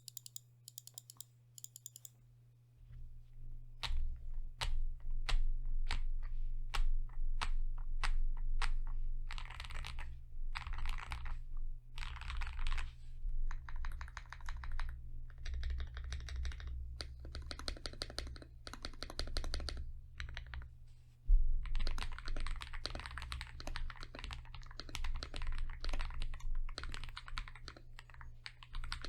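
CIY Gas67 mechanical keyboard with Akko Cream Yellow V3 linear switches lubed with Krytox, dampened with case foams, PE foam and a tape mod, being typed on. Single keystrokes come about twice a second at first, then short bursts of fast typing, and near the end steady fast typing.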